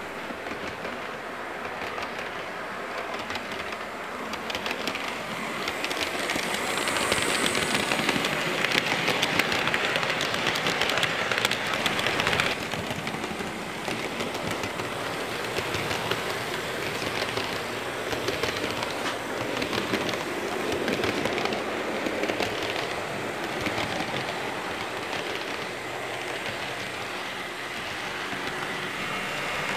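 A train running along the track, its wheels clicking rapidly over the rail joints. The sound is loudest a few seconds in and drops suddenly about twelve seconds in, then carries on more quietly.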